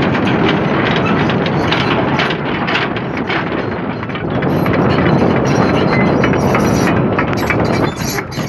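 Komatsu PC200 hydraulic excavator's diesel engine running steadily close by, a dense mechanical rumble.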